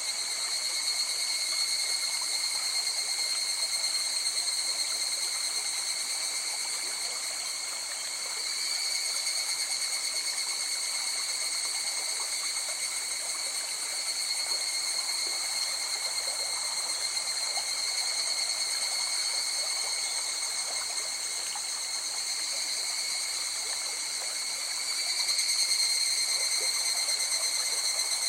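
River water flowing steadily over stones, under a continuous high-pitched chorus of insects. The level swells slightly near the end.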